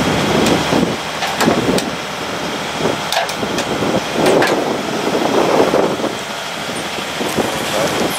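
Heavy lifting machinery running under load, with an uneven, pulsing rumble and a few sharp metallic clicks.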